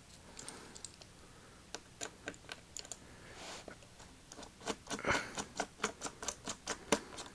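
Faint, irregular small clicks and ticks of a small Phillips screwdriver backing out the screws that hold a laptop's screen frame to its lid, the clicks coming thicker in the second half.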